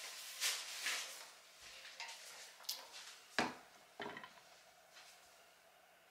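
Several short rustles and knocks as a dressing pad is handled with gloved hands. The loudest comes about three and a half seconds in, and the handling stops after about four and a half seconds.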